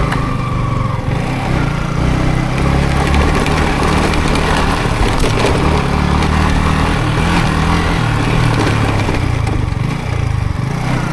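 Yamaha MT-15's single-cylinder four-stroke engine running while riding on a dirt trail, its note rising and falling with the throttle.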